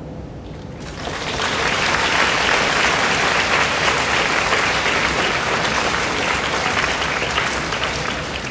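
Audience applauding, the clapping breaking out about a second in and carrying on steadily, easing slightly near the end.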